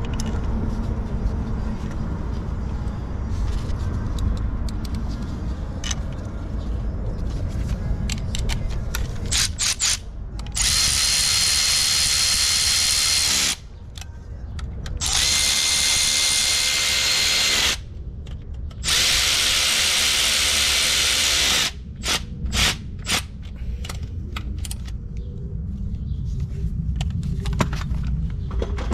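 Handheld power tool with a drill-like motor running at a steady pitch in three runs of about three seconds each, with clicks and knocks of tools and parts being handled before and after.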